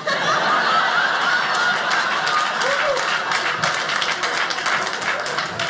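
Audience applauding a stand-up comedian's punchline: a dense, steady wash of clapping that starts suddenly, with a few voices mixed in.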